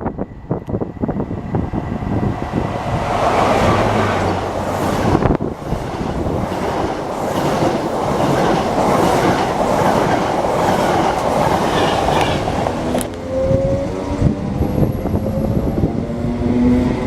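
A train running through the station, its wheels clattering over the rail joints, then a loud steady rush for about ten seconds. Near the end the sound changes abruptly to a rising whine, like a train pulling away.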